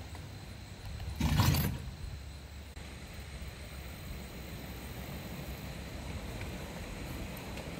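Ridable-scale train rolling along the track with a steady low rumble, and one loud rattling burst about a second and a half in.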